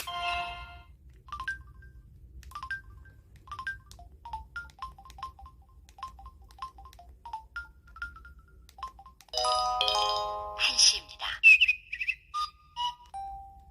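Samsung Anycall SCH-S530 phone playing a built-in ringtone through its speaker: a run of short, separate electronic melody notes, then a louder, fuller passage of held chords from about nine seconds in.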